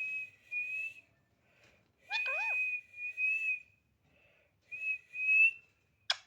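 A pet parrot whistling: a few short, high whistles, then a longer whistle about two seconds in that opens with a quick gliding note, and another short whistle near the end. Each whistle is a nearly steady tone that rises slightly at its close.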